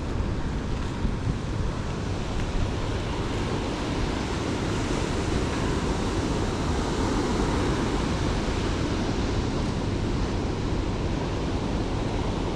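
Steady rushing noise of ocean surf, mixed with wind.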